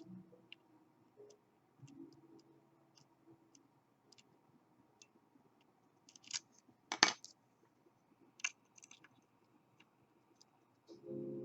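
Lock pick and tension wrench working inside a KABA Gemini dimple lock: faint scattered metal ticks and scrapes, with a cluster of louder metallic clinks about six to seven seconds in and one more about a second and a half later.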